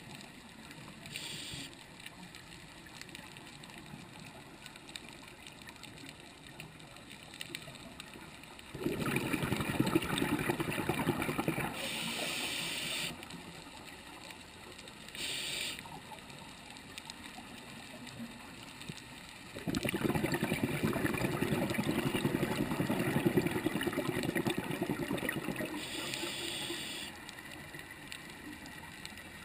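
Scuba regulator breathing underwater: two long exhalations of rumbling, crackling bubbles, several seconds each, about a third of the way in and again past the middle. Short hissing inhalations come between them.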